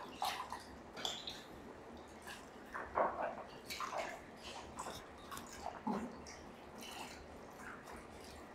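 A sponge being rinsed and squeezed out by hand in a bucket of clay-clouded water at a potter's wheel: a few short, soft splashes and trickles, faint and irregular.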